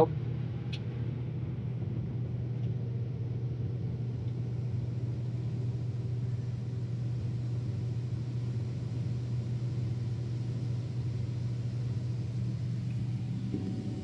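Case IH 6088 Axial-Flow combine running steadily at full throttle, a constant low drone with an even hum, while it unloads soybeans into a grain cart.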